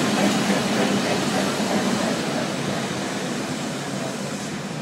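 Historic electric tram on Porto's line 22 running past close by on its rails. The rolling noise is loudest near the start and slowly fades as the car moves on.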